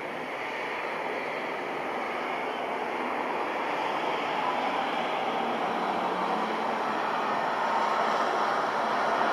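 Jet engine noise of a Boeing KC-767 twin-engine tanker climbing away after a low pass, a steady rushing sound that grows gradually louder.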